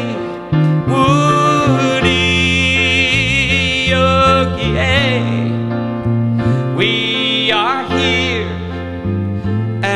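Live music: grand piano and electric bass under a man's voice holding long, wavering notes without words.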